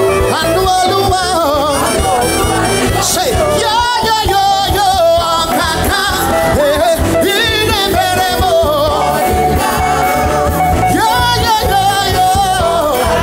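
Gospel praise music: a singer's voice with vibrato carrying the melody over a full band backing with a steady beat.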